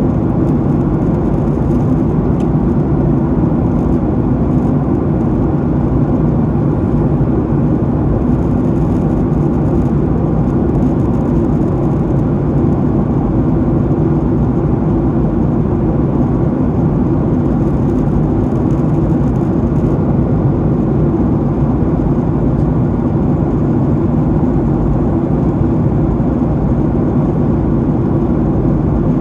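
Boeing 737-800 in flight, heard inside the passenger cabin: a steady roar of the jet engines and airflow that does not change.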